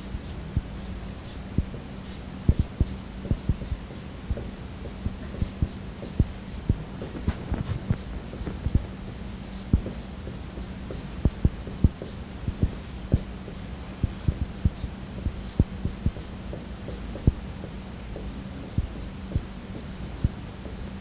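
Dry-erase marker writing on a whiteboard: irregular short squeaks and light taps of the tip against the board as letters are drawn, over a steady low hum.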